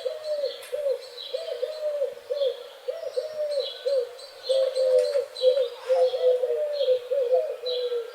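Birds calling: a fast run of short, low, cooing notes repeated two or three times a second, with fainter high chirps from other birds.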